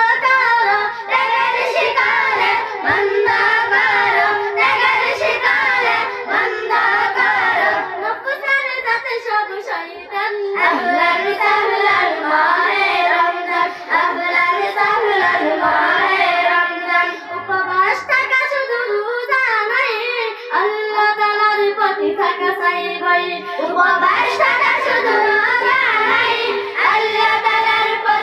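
A group of girls singing an Islamic devotional song (gojol) together into microphones, in a continuous melodic line with short breaths between phrases.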